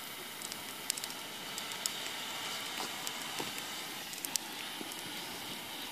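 Hand-held orange smoke flare burning with a steady hiss, with scattered sharp clicks through it.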